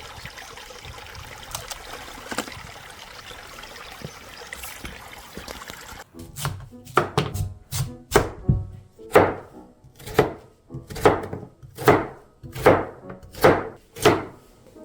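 A forest stream running steadily, then about six seconds in a knife starts chopping on a cutting board in a steady rhythm, a little over one cut a second, likely cutting Korean radish for kimchi.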